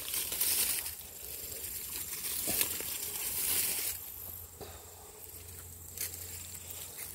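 Rustling and crackling of garden plants and weeds being pulled up and handled, in stretches over the first few seconds, with a few short snaps.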